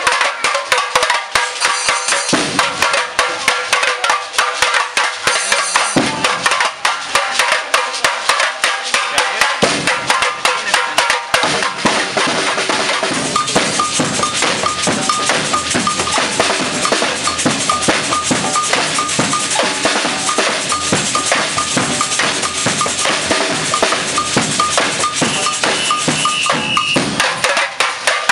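Samba percussion band playing a fast, busy pattern on hand bells, tamborims and shakers. About twelve seconds in the drums join with low hits under the bells, and they drop out again near the end.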